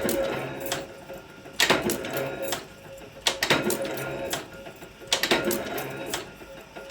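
Machinery in spoon and cutlery production running in a steady cycle, with a sharp metallic strike about every one and a half to two seconds, rattling between strikes, and a steady machine hum.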